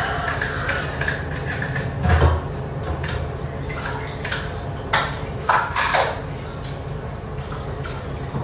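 Kitchen dishes and utensils clattering: a knock with a low thud about two seconds in, then several clinks about five to six seconds in, over a steady low hum.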